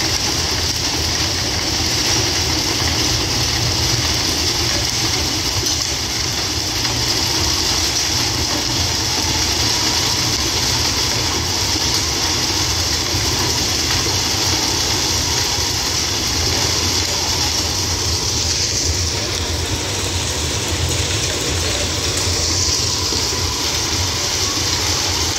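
Track ballast regulator's diesel engine running steadily as its rotary sweeper brush clears leftover ballast stones off the rails: a constant low drone under a broad high hiss, with no distinct knocks or changes.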